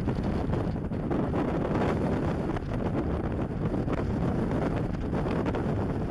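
Wind of about 40 km/h buffeting the camera's built-in microphone: a steady, low rumbling wind noise with gusts swelling and easing.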